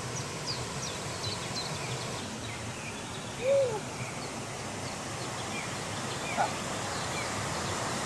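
Steady rushing of a waterfall. Repeated short high chirps sound over it in the first two seconds, and a single short call rises and falls about three and a half seconds in.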